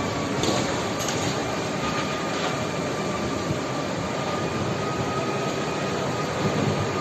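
Steady, train-like roar of tornado wind with a thin, steady high whistle running through it, and a couple of faint knocks in the first second or so.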